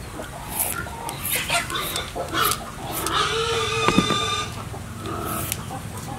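Chickens clucking, with a rooster crowing in one long call about three seconds in. A metal vegetable peeler scrapes along a cucumber in short strokes.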